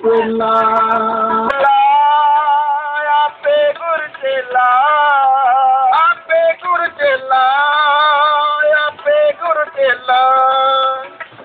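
Sikh kirtan singing: a devotional hymn sung in long, held, wavering notes. A lower voice gives way to a higher one about one and a half seconds in.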